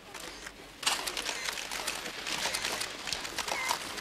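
A bank of press cameras firing at once, shutters and motor drives clicking rapidly and overlapping. The clicking starts about a second in.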